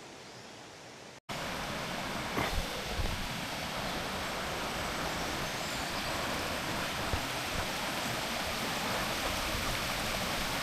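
Fast-flowing brook water rushing steadily, starting abruptly about a second in.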